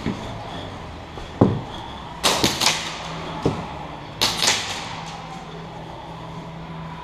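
Airsoft gunfire: two quick bursts of sharp snapping cracks, about two seconds apart, the first about two seconds in. A loud dull thump comes about a second and a half in, and a smaller knock falls between the bursts.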